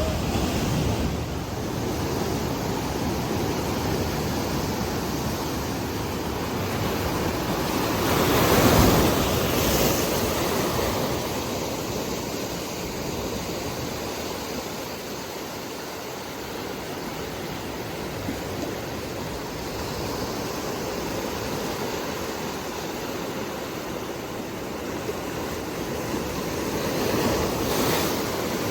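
Ocean surf washing ashore: a steady rush of waves with a larger wave swelling and breaking about a third of the way in and another near the end.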